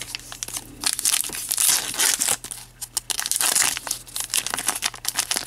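Wrapper of an Upper Deck Goodwin Champions trading card pack being torn and peeled open by hand, crinkling and crackling irregularly.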